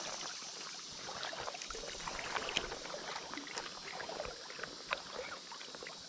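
Water lapping and trickling against the hull of a small boat, probably a kayak, with small irregular ticks and clicks throughout.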